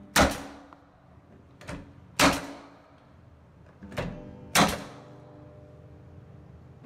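Coil nail gun driving collated screw nails into plywood: three sharp shots about two seconds apart, each preceded by a lighter knock.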